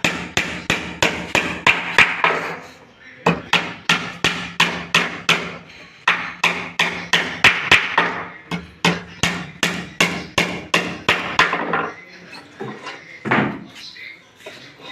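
Hammer blows on wood in quick, even runs of about four strikes a second, pausing briefly about three seconds in and dying away near the end.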